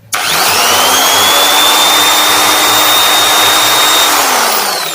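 Camel corded electric drill switched on and run at full speed with no load: a loud, steady whine that comes up to speed almost at once. About four seconds in the trigger is released and the motor spins down with a falling whine.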